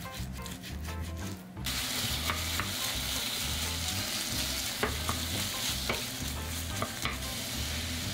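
A knife cuts raw chicken breast on a cutting board with a few sharp clicks for the first second and a half. Then chicken pieces sizzle steadily in a hot frying pan, with now and then a scrape or tap as a spatula stirs them.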